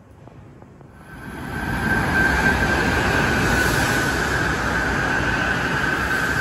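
Kyushu Shinkansen bullet train passing through the station non-stop at speed. A rushing noise builds about a second in and then holds loud and steady, with a steady high whine running through it.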